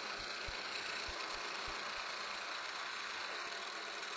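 Milling machine running steadily while a 1/8-inch end mill cuts a slot in a metal plate under a stream of coolant, an even whirring hiss with a few faint low thumps.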